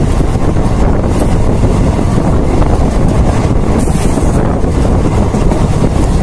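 Moving train heard from an open coach doorway: a loud, steady rush of wind buffeting the microphone over the low rumble of the train running on the track.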